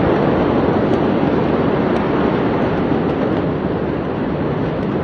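Steady, loud rushing roar of the big port warehouse fire burning under its smoke plume, heard from across the city, with a few faint pops; it eases slightly near the end.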